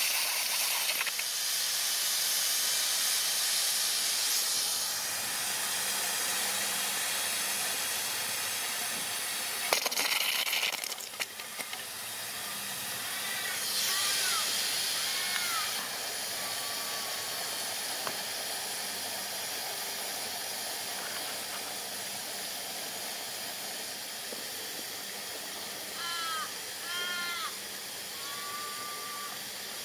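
Steady steam hiss from a 3.5 oz injector on a miniature live-steam locomotive, with steam turned on so that it lifts and feeds water into the boiler. A single sharp click comes about ten seconds in.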